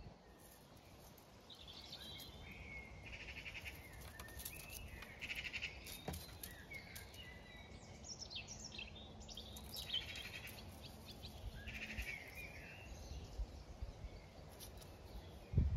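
Faint farmyard background: small birds chirping and trilling, with distant sheep bleating, scattered all through, over a low steady rumble.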